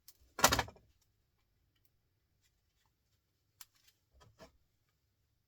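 Hand-stripping copper windings from a small electric motor: a short, loud scrape of metal about half a second in, then a sharp click and a few soft taps.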